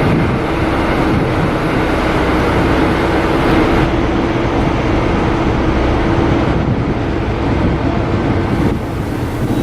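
A train running, with a steady rumble and a constant hum; the hiss in the upper range eases off about four seconds in and comes back near the end.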